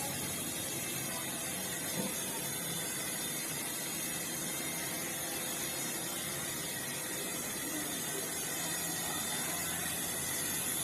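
Toy remote-control helicopter's small electric motor and rotor running with a steady whir.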